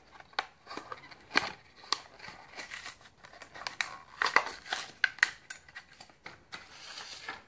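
Clear plastic blister pack crinkling and crackling as it is peeled apart by hand to free a die-cast toy car, with irregular sharp clicks and rustles of the card backing. A longer, denser rustle comes near the end.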